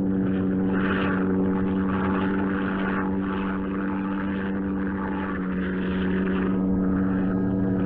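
Propeller airplane engines running steadily in flight: a continuous, even hum with a strong low tone and its overtones.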